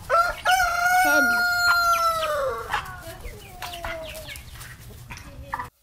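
Rooster crowing once: a cock-a-doodle-doo of about three seconds whose long final note holds steady, then falls away.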